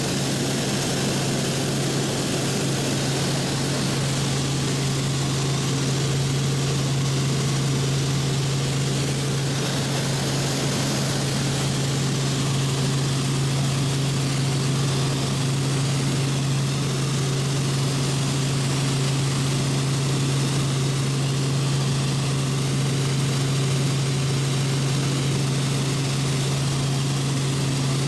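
Helicopter cabin noise in steady flight: a constant low drone from the rotor and engine over a broad rushing hiss, unchanging throughout.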